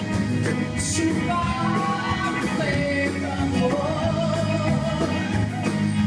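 A live folk-rock band plays with a woman singing over acoustic and electric guitars. Under them runs a steady drum beat from a drum kit and Dene frame hand drums.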